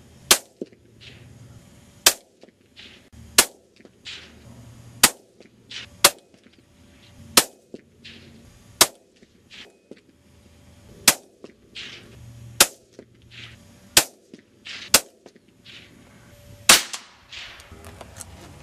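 Shots from a Ruger 77/17 bolt-action rifle in .17 HMR: about a dozen sharp cracks one to two seconds apart, with a fainter crack trailing about half a second after most of them.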